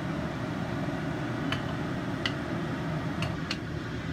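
Kitchen scissors cutting raw chicken leg steak into pieces: about four short, sharp clicks of the blades, over a steady low hum.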